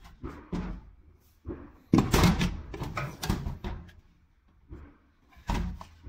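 Green plastic sheep and goat drinking bowls being handled and knocked against a shelf: irregular knocks and thuds, the loudest cluster about two seconds in and another near the end.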